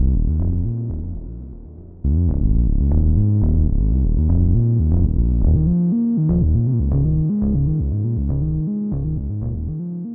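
Keyboard music on a synthesizer sound, a low line of notes played about twice a second. It breaks off and starts again about two seconds in, and fades near the end.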